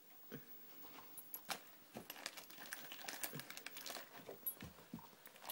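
Crinkly packaging of a dog's Christmas treat stocking being handled, rustling in irregular crackles that grow busier after about two seconds.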